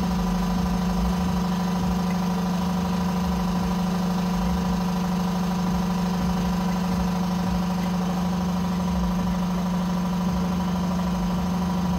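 A steady mechanical hum from a machine running continuously. It has a strong low tone and fainter steady higher tones, and its level and pitch do not change.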